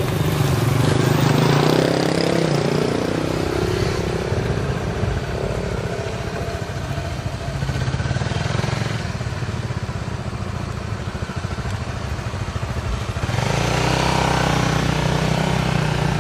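Motorcycle engines: a passing motorcycle drops in pitch over the first few seconds, then a motorcycle engine runs steadily at low revs. About thirteen seconds in it gets louder as the bike pulls away.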